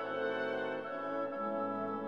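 Orchestral background music, with brass instruments holding long, sustained notes.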